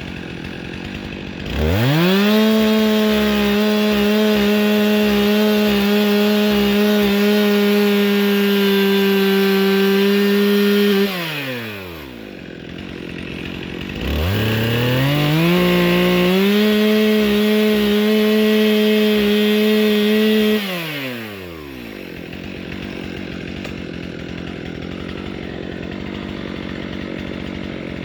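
Stihl MS 362 C two-stroke chainsaw cutting into a tree during felling cuts. It goes from idle to full throttle for about nine seconds, drops back to idle, runs full throttle again for about six seconds, then falls back to idle.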